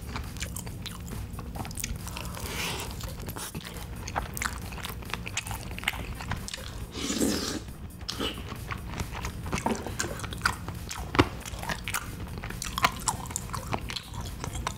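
Close-miked eating sounds: chewing with many small wet clicks, along with a wooden spoon scraping and mixing rice and crumbled seasoned seaweed in a ceramic bowl.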